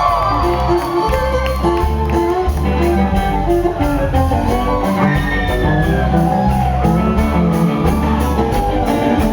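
Live country band playing an instrumental groove: a lead line of quick, short notes over a steady bass pattern.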